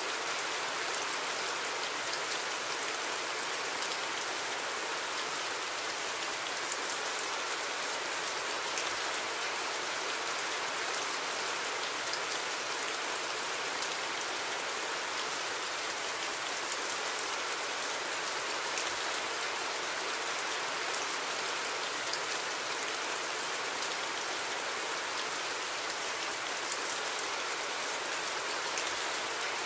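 Steady rain falling, a constant even hiss with scattered small drop ticks.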